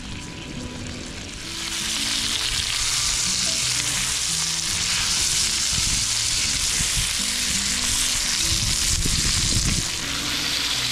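Fish fillet frying in butter in a cast-iron skillet, sizzling steadily; the sizzle grows louder about a second and a half in and eases slightly near the end.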